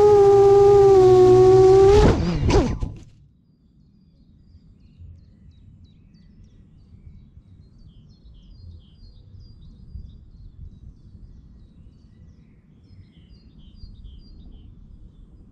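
A seven-inch FPV quadcopter's XING 2806.5 brushless motors and HQProp three-blade props whining in a wavering hover. About two seconds in the pitch falls quickly and the motors spin down and stop as the quad lands. After that come faint wind rumble and a few soft bird chirps.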